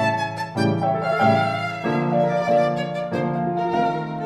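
Instrumental music: a melody of held, wavering notes that change every half second or so, over a lower sustained accompaniment.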